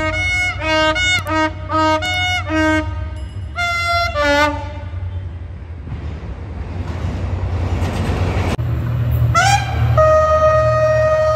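Diesel locomotives of Egyptian National Railways give a steady low engine rumble, with a rushing noise of a passing train in the middle. Near the end a locomotive air horn slides up in pitch and settles into a long, loud steady blast.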